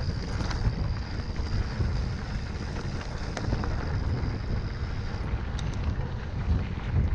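Wind buffeting the microphone while an e-mountain bike rides along a trail, over a low tyre rumble with scattered short clicks and rattles from the bike. A faint high whine runs under it and stops about five seconds in.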